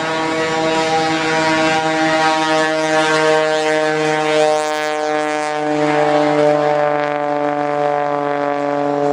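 A biplane's piston engine and propeller drone steadily as it flies low past the crowd, the pitch dipping slightly midway through.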